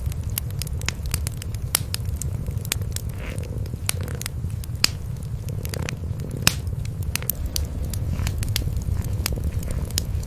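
Wood fire crackling with frequent, irregular sharp pops and snaps, over the steady low purring of cats.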